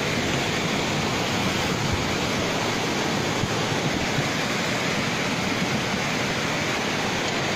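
Muddy flash-flood torrent rushing down a street, a steady dense rush of water.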